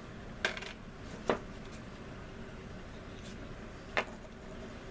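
Three sharp light clicks of small hard objects being picked up and set down on a work bench while plastic model kit parts are handled: one about half a second in, another a second later, and one near the end.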